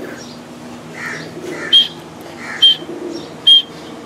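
Pigeons cooing softly, then a bird's short, high chirp repeating about once a second from a little before halfway.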